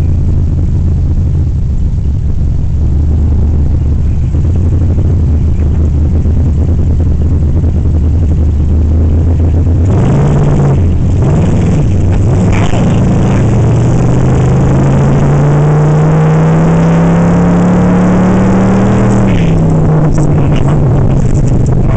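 Ice-racing car's engine heard from inside the cabin, running low and steady at first, then revving up about halfway through and climbing in pitch over several seconds of acceleration before dropping back near the end.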